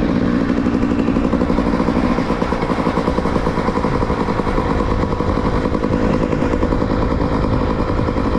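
Motorcycle engine running at steady, even revs with a fast regular pulse. The engine has been freshly rebuilt with a new piston, oil pump and connecting rod and is being run in gently.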